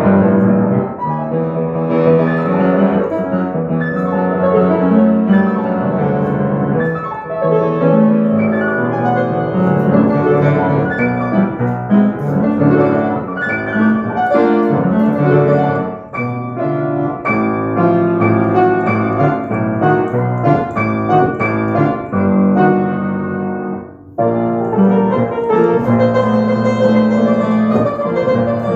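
Keyboard music in a piano voice, a continuous run of notes and chords with a short break about 24 seconds in.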